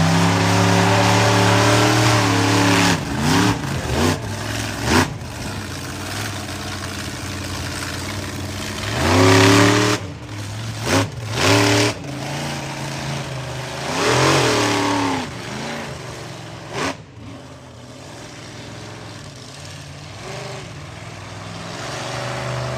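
Monster truck engine revving hard in repeated bursts, its pitch climbing and dropping with each blip of the throttle. After about two-thirds of the way it settles into a quieter, lower running, then starts to build again near the end.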